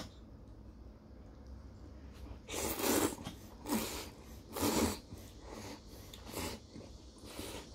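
A man slurping thin noodles from a bowl of soup noodles: a run of airy slurps starting about two and a half seconds in, the first three loudest, with two smaller ones near the end.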